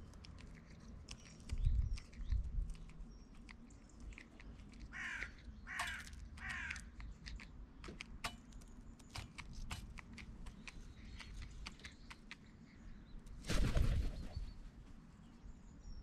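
Carrion crow cawing three times in harsh calls, among many sharp clicks of its beak pecking seed on a metal feeder tray. A loud burst comes near the end as the crow takes off.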